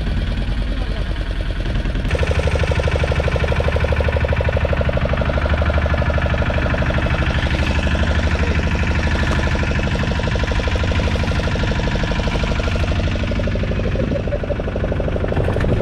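Boat engine running steadily with a fast, even throb, growing louder about two seconds in.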